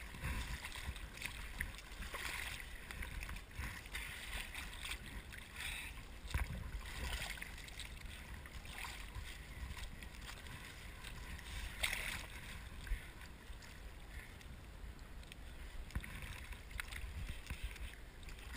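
Sea water sloshing and splashing around a kiteboarder floating beside his collapsed kite, with a few sharp knocks as he handles the lines and gear.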